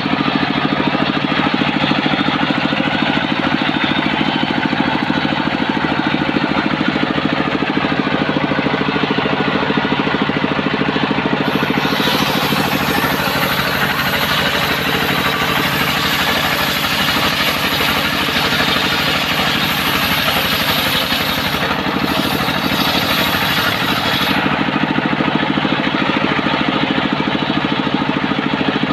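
Homemade engine-driven circular saw rig running steadily. From about twelve seconds in until about twenty-four seconds, the blade is cutting through coconut palm wood, adding a harsh high hiss over the engine; a short cut starts again near the end.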